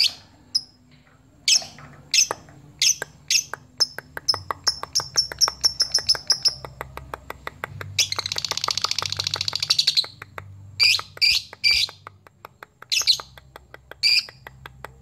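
Lovebird calling: sharp high chirps, then a run of quick repeated chirps, and about eight seconds in a long rapid chattering trill (the 'ngekek') lasting about two seconds, followed by a few more chirps. It is the challenge call a male uses to draw out a rival fighter bird.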